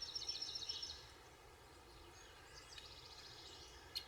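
Faint songbird song: a fast trill of repeated high notes in the first second, a softer phrase around three seconds in, and a single sharp click near the end.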